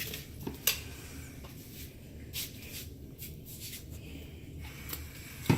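Light handling noises: scattered soft clicks and rustles, with one sharper knock near the end.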